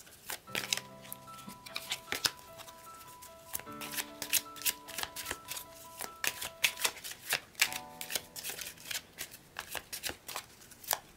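An oracle card deck shuffled by hand, a quick, uneven run of card clicks and snaps, over soft background music of held notes.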